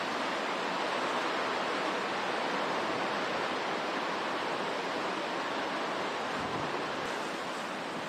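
Hurricane-force wind and driving rain: a steady rushing noise.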